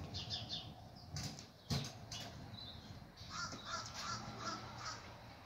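A crow cawing in a quick run of harsh calls, about five in a row around three and a half seconds in. A single sharp knock sounds shortly before.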